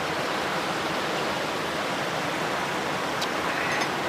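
Steady rush of water pouring through the overflow and concrete channels of koi ponds, with a light click about three seconds in.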